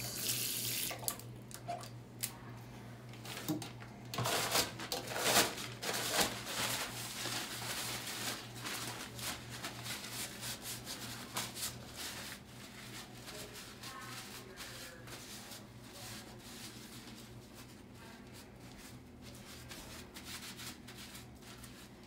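Hand washing at a small sink: water from the tap splashing while soapy hands are rubbed and scrubbed together, the water loudest in the first six seconds or so.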